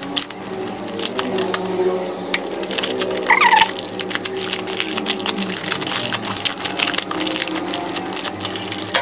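Thin plastic protective wrap crinkling and crackling as it is peeled and pulled off a bicycle frame by hand, a dense run of irregular crackles.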